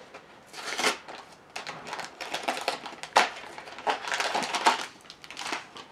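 Small cardboard box of a Japanese snack kit being torn open by hand: irregular scratchy tearing and rustling, with a few sharper cracks of the card.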